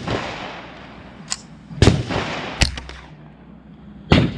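Gunshots on an outdoor firing range: several shots with a short echoing tail after each. The two loudest come just under two seconds in and near the end, with fainter shots in between.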